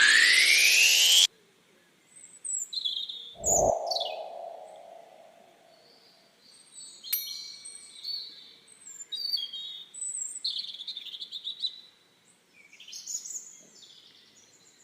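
A loud rising sweep sound effect that cuts off suddenly about a second in, then a short falling boing-like sound, followed by birds chirping on and off in short high calls.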